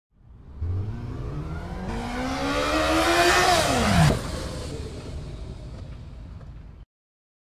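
Unprocessed recording of a car driving past, before any time-stretching. The engine note climbs as the car accelerates toward the microphone, then drops sharply in pitch about four seconds in as it passes. It fades away and cuts off abruptly near the end.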